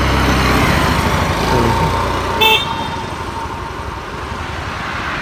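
Road vehicle rumble with a short horn toot about two and a half seconds in; the rumble eases after the toot.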